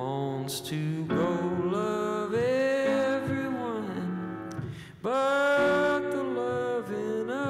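A man sings long, sliding held notes while accompanying himself on an upright piano.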